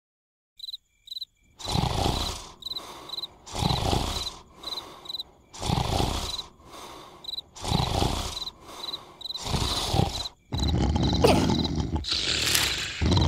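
Cartoon larva snoring: loud, rasping snores about every two seconds, over crickets chirping in short repeated pulses. Near the end the snoring runs into one longer, louder stretch.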